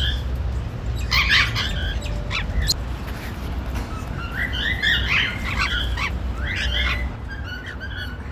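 Pair of normal grey cockatiels chirping and whistling in quick runs of short rising and falling calls, the chatter of contented birds. A steady low hum runs underneath.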